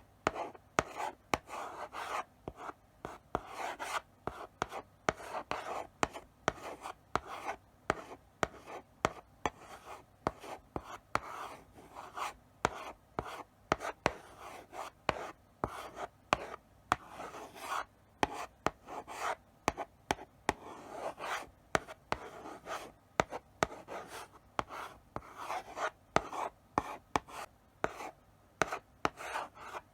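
Chalk writing slowly on a blackboard: a steady run of short scratchy strokes broken by sharp taps as the chalk meets the board.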